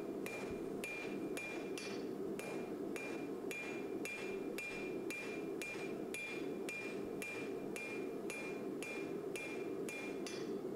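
Hand hammer striking a red-hot bar of forge-welded coil-spring steel on an anvil, about two blows a second, each blow with a short ring from the anvil, as the bar is flattened and evened up. A steady rushing noise runs underneath.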